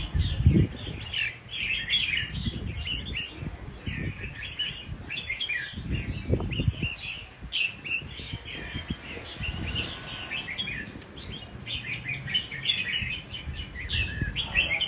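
Male scarlet-backed flowerpecker calling: a steady stream of rapid, thin, high chirps and short twitters, with a few dull thumps about half a second in and again around the middle.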